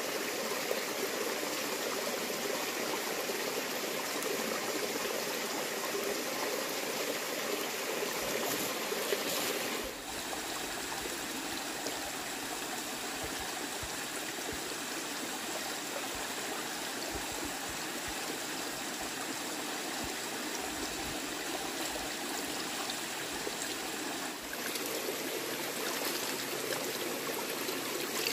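Shallow forest stream running and trickling over rocks. It is a steady wash of water that drops a little in level about ten seconds in and changes again near the end.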